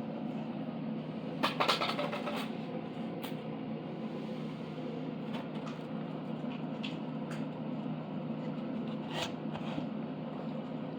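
Metal parts of a CNC machine kit being handled and fitted: a short clatter of clicks about a second and a half in, then scattered single clicks as the gantry is lined up on its shims and spacers. A steady low hum runs underneath.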